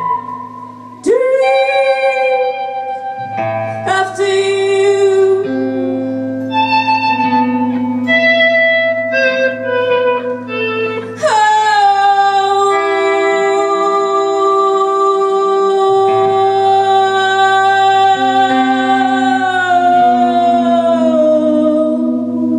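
A woman singing long, slow held notes that slide between pitches over a steady droning electric guitar. Her notes change every second or so at first, then she holds one long note from about halfway, letting it fall in pitch near the end.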